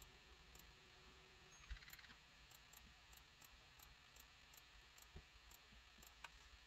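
Near silence: room tone with faint, quick computer-mouse clicks, about two or three a second, as frame members are selected one after another.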